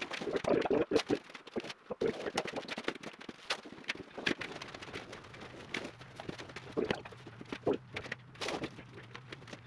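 Irregular knocks and clatter of things being handled and set down.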